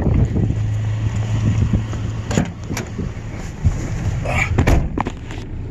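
Vehicle engine idling with a steady low hum, with a few short knocks and clicks over it, the loudest a little under four seconds in.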